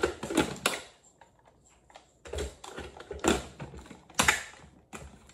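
Kitchen clatter: a series of irregular knocks and clicks as ingredients are dropped into a blender jar and the jar is handled. No blender motor is running.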